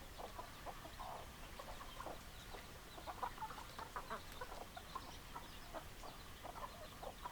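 Several hens clucking, short overlapping clucks several times a second.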